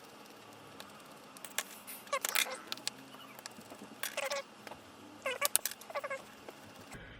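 Light clicks and short squeaks in several small clusters from a precision screwdriver driving tiny screws back into a smartphone's frame.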